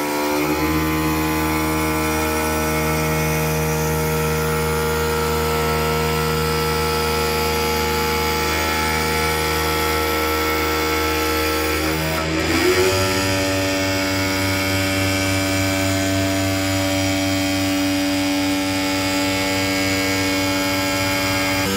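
CNC wood lathe turning a wooden spindle: a steady motor whine over the noise of the cutter, its pitch shifting with a short glide about halfway through, then holding steady again.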